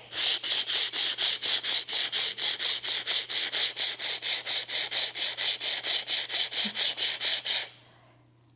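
Sand blocks, wooden blocks faced with sandpaper, rubbed against each other in a steady rhythm of about five hissy scraping strokes a second. The rubbing stops shortly before the end.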